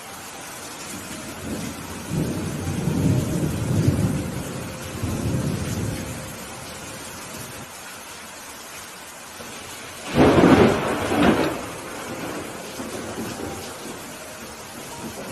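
Steady rain with thunder: a low rolling rumble from about two to six seconds in, then a loud, sudden crack of close thunder about ten seconds in, with a second clap just after.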